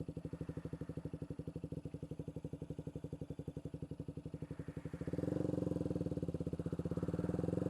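KTM 125 Duke's single-cylinder four-stroke engine idling with an even beat of about a dozen pulses a second. About five seconds in it picks up a little in revs and loudness.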